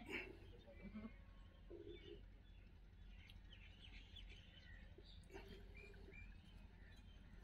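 Faint scattered bird chirps, with two short, faint animal calls: one about two seconds in and a slightly longer one after five seconds.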